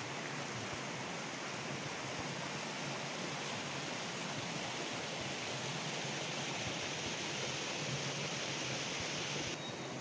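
Steady rushing of a small waterfall pouring over rock into a pool, an even hiss of falling water. The higher part of the hiss drops away suddenly near the end.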